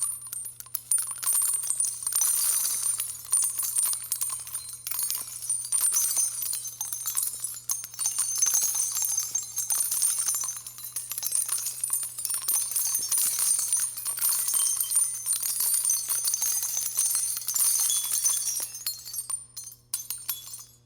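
Continuous light jingling and tinkling, bright and fluctuating in level, over a steady low electrical hum.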